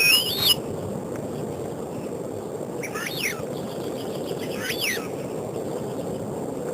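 Bird calls: a loud whistled call with rising pitch at the start, then two more calls with sliding pitch about three and five seconds in, over a steady low background hiss.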